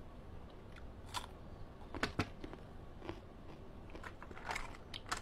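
Close-up crunchy biting and chewing of fresh cucumber, a run of scattered crisp crunches and clicks, loudest about two seconds in.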